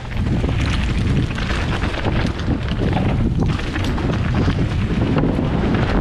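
Wind buffeting an action camera's microphone while a mountain bike descends a rocky trail, its tyres rumbling over loose stones with constant small clatters and rattles from the bike.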